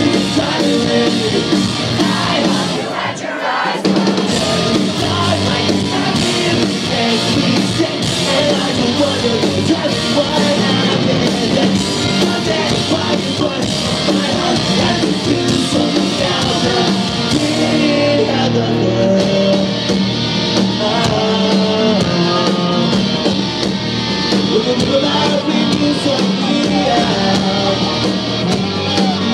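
Live pop-punk band playing a song loud, with distorted electric guitars, a drum kit and a singer, as heard from within the club crowd.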